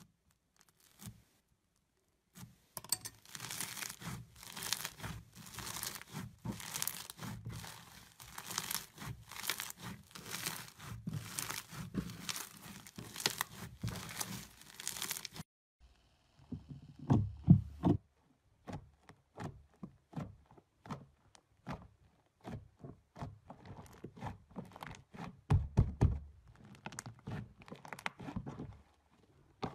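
Foam-bead slime (floam) being pressed and poked, crackling and popping densely as the beads crunch, starting about two seconds in. After a short break about halfway, slime squeezed by hand gives a few louder low squelches, then scattered pops and crackles.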